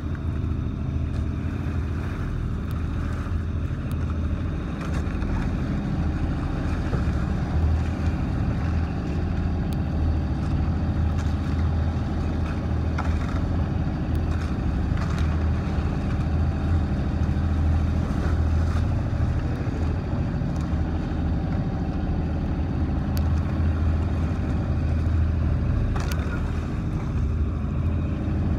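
An outrigger bangka's engine running at a steady drone under way, with water rushing along the hull.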